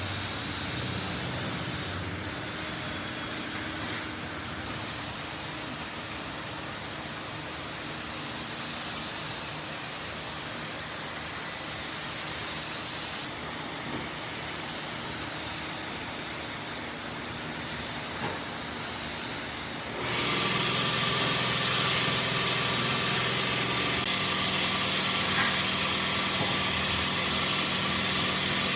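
Workshop power-tool noise: a steady hiss that changes abruptly several times, joined about two-thirds of the way in by a motor's steady hum.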